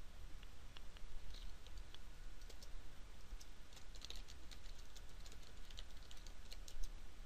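Typing on a computer keyboard: quick, uneven runs of light key clicks, busiest about four to five seconds in, over a low steady hum.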